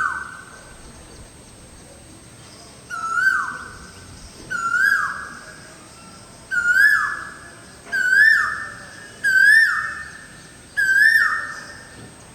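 Asian koel, a cuckoo, calling in a repeated series: each call is a short held note that falls away sharply. The calls come about every one and a half seconds and rise in pitch one after another.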